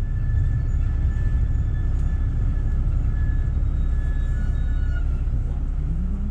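Steady low rumble of a bus's engine and road noise heard from inside the moving bus, with a thin high whine over it that stops about five seconds in.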